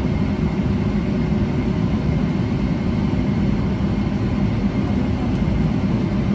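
Boeing 777-300ER cabin noise heard beside the wing: the GE90-115B engines and airflow make a steady, even noise strongest in the low range, with a faint constant whine above it.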